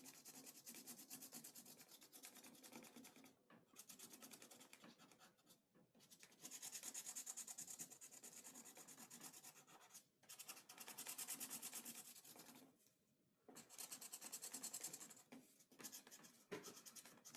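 Marker scribbling back and forth on cardboard, coloring it in with faint, quick strokes that come in spells of a few seconds with short pauses between.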